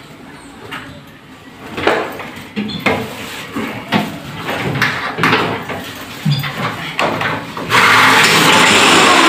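Knocks and clatter of an aluminium-framed glass wall cabinet being handled and fitted against the wall, then near the end a power drill starts up and runs steadily with a thin whine.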